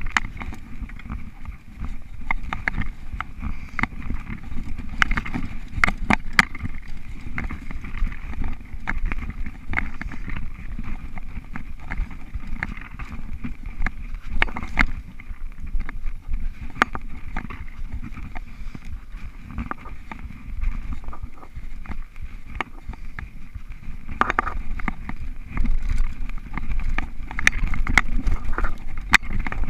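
Mountain bike ridden fast down a dirt singletrack: a continuous rumble of knobby tyres on dirt, with frequent sharp clicks and knocks as the bike rattles over bumps and roots.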